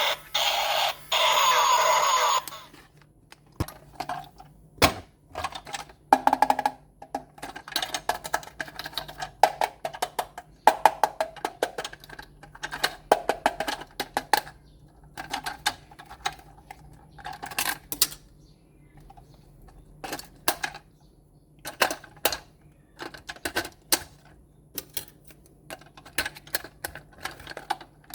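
A toy police car's electronic siren runs for the first two seconds or so and cuts off abruptly. It is followed by a long series of sharp clicks, taps and short crackles from plastic toy parts and packaging being handled.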